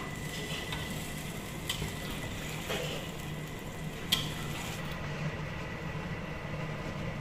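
Sardines in chili sauce simmering in a wok over a steady low hum, with three light clicks of a metal spatula against the pan, the sharpest about four seconds in.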